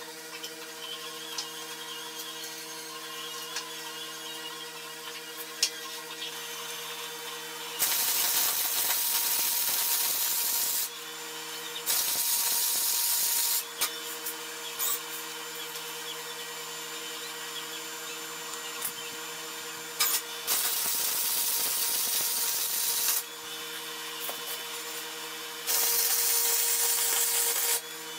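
Harbor Freight 125-amp wire-feed welder laying short welds: four stretches of crackling arc, each one to three seconds long and stopping abruptly, the first about eight seconds in. A steady hum runs underneath.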